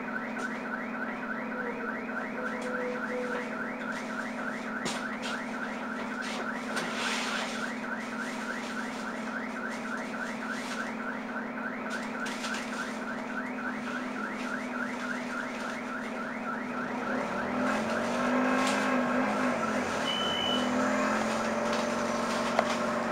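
Alarm on a Stagecoach Scania double-decker London bus, sounding a rapid run of rising electronic chirps, several a second, over the bus's idling engine hum. After about seventeen seconds the chirps fade as a bus engine grows louder and pulls away.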